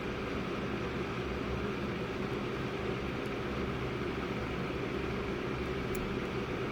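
A steady machine hum with a low drone that holds unchanged, and a faint click about six seconds in.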